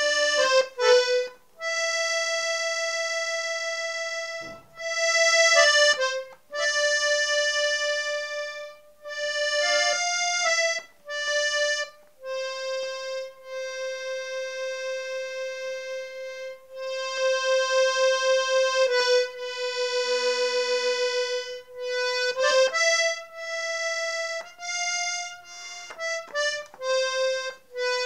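Accordion playing a slow melody one note at a time, with long held notes between quicker runs.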